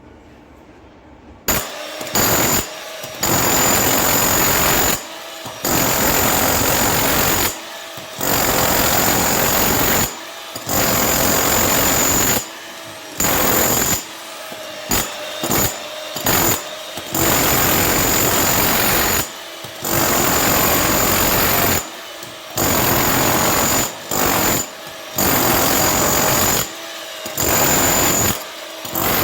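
Hilti TE 70 electric combihammer hammering into concrete. It starts about a second and a half in, then runs in repeated bursts of one to three seconds with short pauses between them as the trigger is released and squeezed again.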